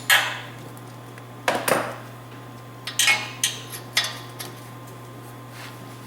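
Metal tools clinking and clanking on the exhaust head pipe hardware of a Honda Rancher 350 ATV as the pipe is fitted and tightened. There are a handful of sharp metallic clanks, irregularly spaced, and the loudest comes right at the start.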